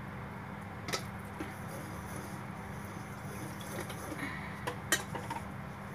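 Wire whisk stirring thick chocolate cake batter in a stainless steel bowl, with a few sharp clinks of the whisk wires against the metal bowl, one about a second in and a cluster near the end, the loudest among them. A steady low hum runs underneath.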